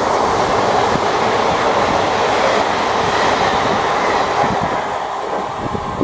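Indian Railways express passenger coaches passing close by at speed: a loud, steady rush of wheels on rail and wind, with occasional wheel knocks over the rail joints.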